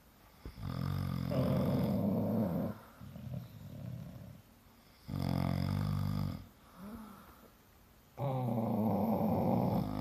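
A sleeping man and a bulldog snoring together: three long, loud snores, each about one and a half to two seconds, with quieter breathing in between.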